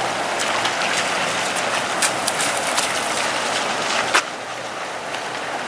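Floodwater rushing, a steady hiss of water with many small splashes and spatters; a little quieter from about four seconds in.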